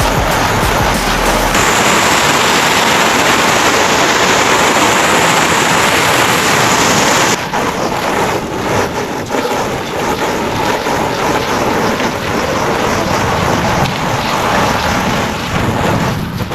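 Water spraying hard onto greenhouse panels: a loud, steady hiss like heavy rain, turning patchier and uneven about seven seconds in.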